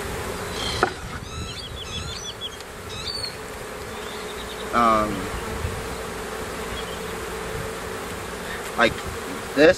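Honeybees buzzing around an open hive, a steady hum at one even pitch. It comes from a docile colony with a lot of workers.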